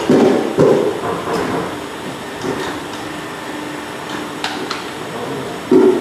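Air-suspension crimping machine working with an air strut in its die head: heavy knocks in the first second, then a steady hum with a faint held tone, a sharp click about four and a half seconds in, and another loud knock near the end.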